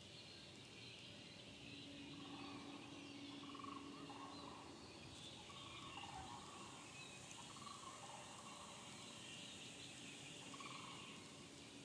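Faint woodland ambience: steady high insect chirring with scattered soft animal calls, and a faint low hum that comes and goes twice.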